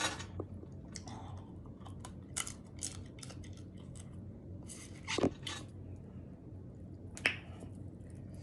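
Seafood shells crackling and snapping as they are cracked and picked apart by hand, with close-up chewing; two sharper snaps stand out about five and seven seconds in.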